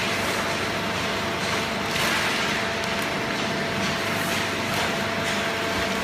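Steady machinery noise from an automatic horizontal baling line: the feed conveyor and baler running, with a faint steady hum and several brief swells of hiss.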